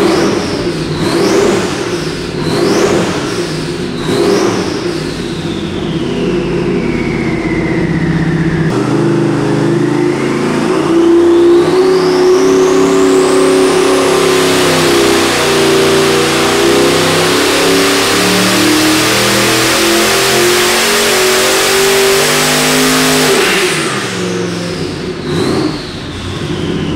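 Twin-turbo 509 cubic-inch big-block Chevy V8 on an engine dyno, blipped three times, then pulled at full throttle on about 12 psi of boost. The engine note climbs steadily through the rpm range with a high whine rising alongside it. About 23 seconds in the throttle closes and it drops back to idle.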